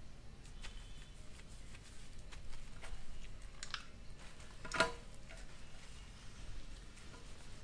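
Small wet clicks and squelches of hands handling and lathering shampoo into wet hair, with one sharper click a little under five seconds in.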